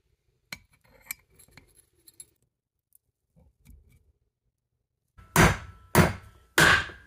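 Three hammer blows on a steel drift, about half a second apart, driving the pressed-in rear wheel bearing out of a 2005 Ford Focus brake drum hub, each strike ringing metallically. Before them come faint metal clicks of snap-ring pliers taking out the bearing's snap ring.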